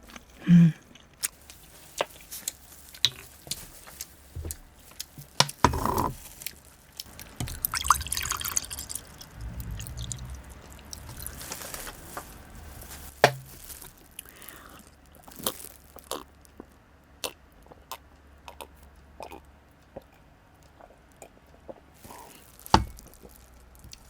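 Close-miked eating of steamed abalone: wet, chewy mouth sounds with many sharp scattered clicks, and a few short noisier bursts of chewing.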